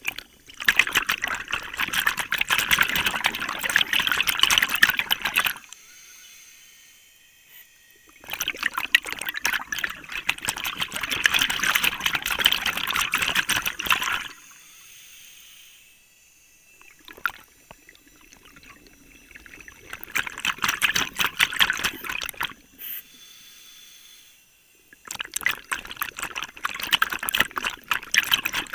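Scuba diver breathing through a regulator, heard underwater: four long bursts of bubbling crackle as each exhalation's bubbles rush up past the microphone, with quieter pauses for the inhalations between them.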